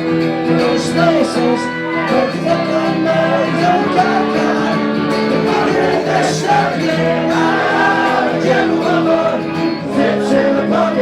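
Acoustic guitar strummed and picked through sustained chords, with a man's voice singing over it.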